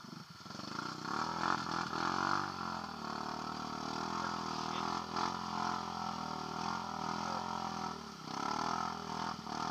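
Honda Rancher 420's single-cylinder engine with an HMF exhaust revving hard and held at high revs as the quad churns in deep mud. The revs dip briefly twice near the end.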